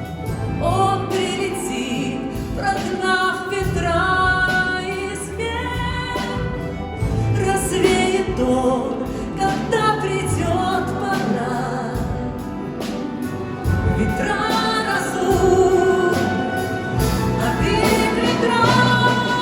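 Orchestra of Russian folk instruments playing a song, with voices singing the melody.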